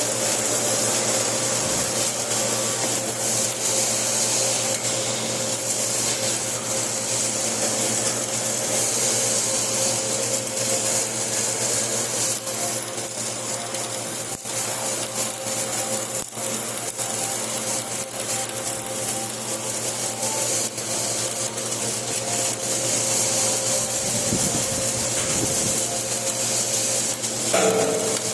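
Flux-core arc welding: a steady crackling hiss from the arc over a steady low hum. A short, louder noise comes near the end.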